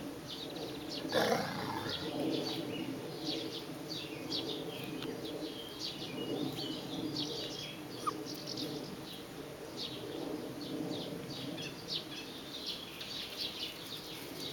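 Small songbirds chirping and singing on and off in the background over a steady low hum, with a brief louder burst of noise about a second in.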